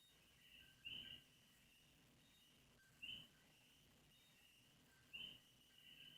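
Near silence broken by a faint, short high-pitched chirp about every two seconds, over a faint steady high tone.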